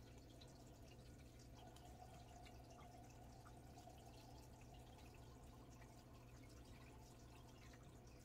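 Near silence: room tone with a low steady hum and scattered faint ticks.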